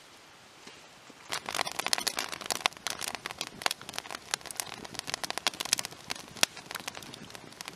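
Wood campfire crackling and popping, a quick irregular run of sharp snaps that starts about a second in over a faint steady hiss.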